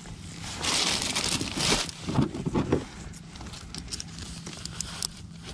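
Rustling and a few light clicks of hands handling fishing line and a metal jig while rigging a rod, with a longer rustle in the first half and scattered small clicks after.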